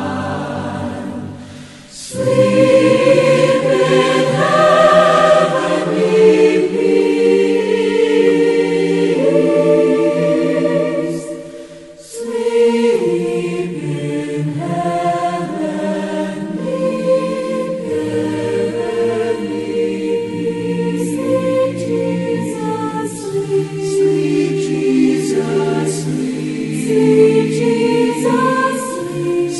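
A choir singing slow, sustained chords, with short breaks between phrases about two seconds and twelve seconds in.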